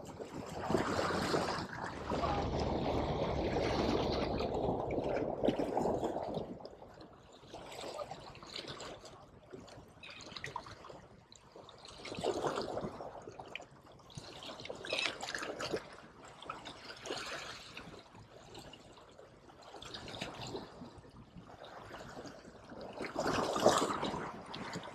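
Small sea waves washing against the jetty rocks and draining back, in irregular surges every few seconds, the longest in the first few seconds and a short strong one near the end.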